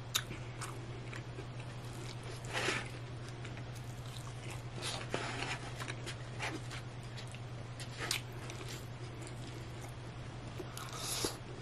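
Eating sounds: chewing a mouthful of burrito bowl, with a metal fork scraping and tapping in the bowl in short bursts every few seconds, over a steady low hum.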